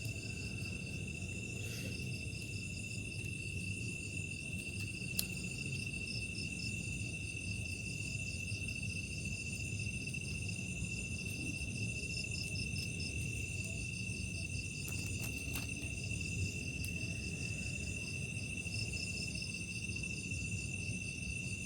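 Night chorus of insects: a steady high trill with rapidly pulsing chirps above it, going on without a break, over a faint low rumble, with a couple of small clicks.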